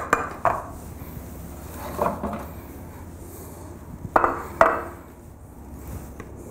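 Metal spoons clinking and scraping against a glass mixing bowl as thick cake batter is scooped out: a handful of sharp clinks and knocks, the loudest two a little after four seconds in.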